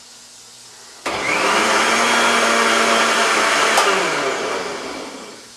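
Electric blender switched on about a second in, running for under three seconds on a parsley sauce. It then switches off and winds down with a falling hum.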